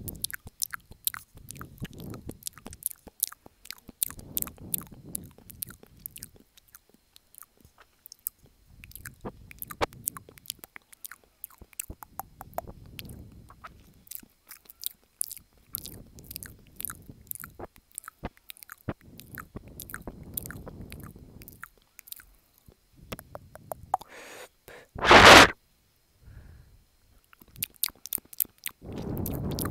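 ASMR mouth sounds made right against an earphone cable's inline microphone: rapid wet lip and tongue clicks, with softer low swells every couple of seconds. One short, very loud burst comes about three-quarters of the way through.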